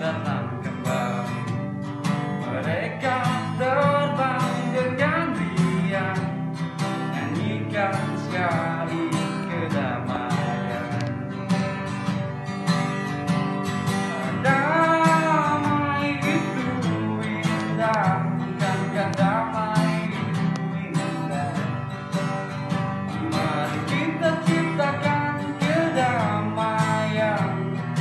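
A man singing an Indonesian-language song through a face mask while strumming an acoustic guitar in a steady rhythm.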